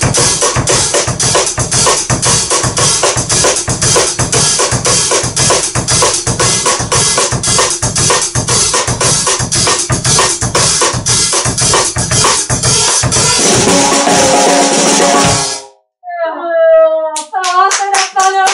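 Acoustic drum kit played in a fast, busy samba-style groove, with bass drum, snare and hi-hat, stopping suddenly near the end. A short vocal call follows, then quick hand clapping.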